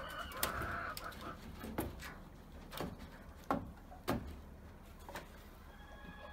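Wooden battens knocking against a timber frame as they are handled and fitted by hand: about six sharp, separate knocks spread over a few seconds, with a low steady hum underneath.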